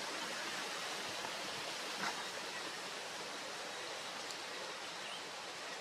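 Steady even hiss with no distinct source, with a faint click about two seconds in.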